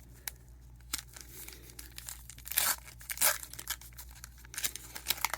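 A sealed trading-card pack's paper wrapper being torn open and crinkled by hand: a couple of small ticks at first, two short tearing rips around the middle, then a run of crinkling near the end.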